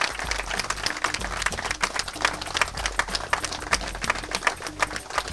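Crowd applauding: many people clapping their hands, irregular and continuous.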